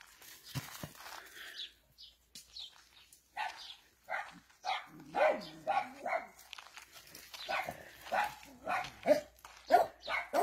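Dog barking repeatedly in short, sharp barks, about two a second, starting a few seconds in with a brief pause midway.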